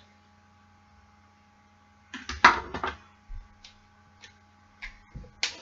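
Handling noise of small makeup items and a hand mirror being set down: a quick cluster of clicks and knocks about two seconds in, then a few scattered light taps, over a steady electrical hum.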